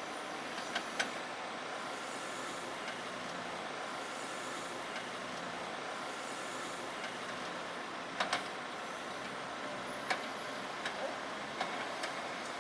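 Faint, steady running of farm machinery at work in grass harvesting, with a few light knocks or clicks.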